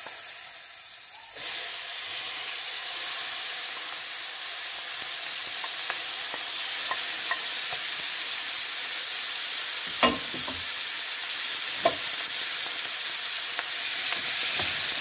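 Marinated chicken liver and gizzard pieces sizzling in hot vegetable oil in a non-stick frying pan, getting louder about a second in as the rest of the meat goes in. A wooden spatula knocks against the pan a couple of times while stirring.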